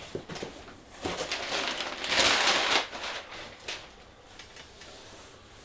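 A package being opened by hand: rustling and tearing of the packaging, loudest for about a second near the middle, with lighter handling clicks around it.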